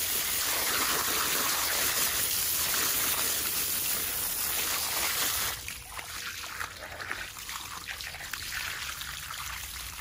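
Garden hose spraying water onto raw meat in an upturned armadillo shell, rinsing it: a steady splattering hiss. About five and a half seconds in it suddenly turns quieter, with trickling and scattered splashes.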